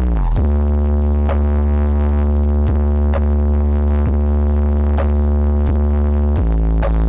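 Loud electronic dance music played through a large sound system during a sound check, dominated by heavy sustained bass with repeated drum hits. The bass slides down in pitch at the start and shifts to another note about six seconds in.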